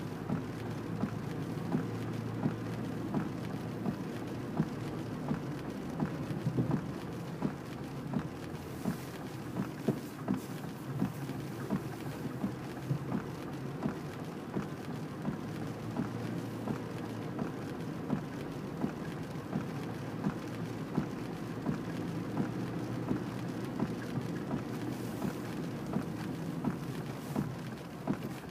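Raindrops hitting a car's windshield and roof in many quick, irregular ticks, heard from inside the cabin over the steady low hum of the engine and tyres on a wet road.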